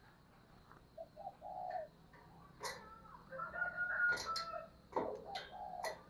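Faint cooing of a caged spotted dove, broken by several sharp clicks and scuffs as the bird moves about in the cage.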